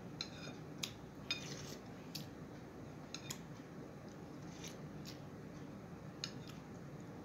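Light, scattered clicks and clinks of cutlery against a plate, about nine over several seconds, a few with a short metallic ring.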